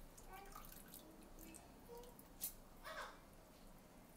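Faint wet squishing and dripping as a hand scoops soaked idli rice out of its soaking water, with a sharp tick about two and a half seconds in.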